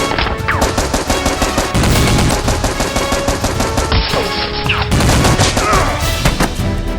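Rapid automatic gunfire sound effects, many shots a second with no break, over action background music.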